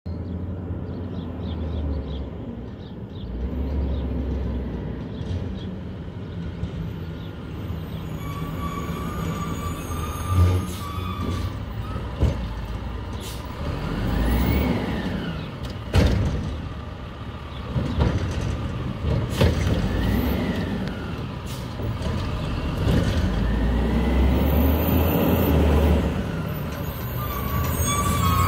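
Diesel engine of a WhiteGMC Amrep Octo automated side-loader garbage truck running as the truck moves slowly along the street. Several sharp air-brake hisses cut in, and the engine grows louder toward the end as the truck comes closer.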